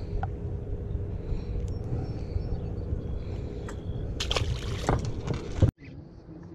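Steady low rumble of wind and water noise on a small boat, with a louder rush of noise about four seconds in, cut off suddenly near the end.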